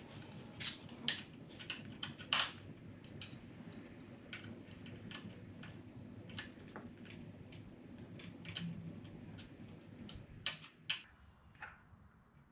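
Irregular clicks and taps of small metal parts and hand tools being handled during a motorcycle quick shifter install, with a faint steady low hum underneath.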